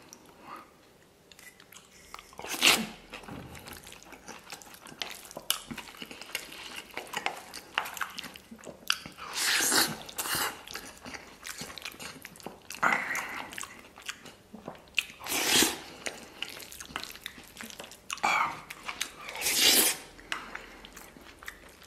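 Close-up mouth sounds of eating tomato-stewed beef brisket mixed with saucy rice: wet chewing and slurping of spoonfuls, with about six louder noisy bursts spread through.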